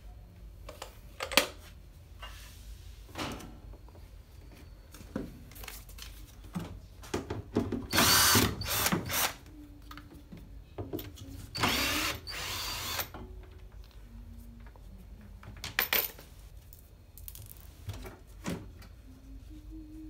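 Cordless drill-driver running in two short bursts, about 8 and 12 seconds in, on the screws of a washing machine's drain valve motor. Scattered clicks and knocks of the parts being handled come between the bursts.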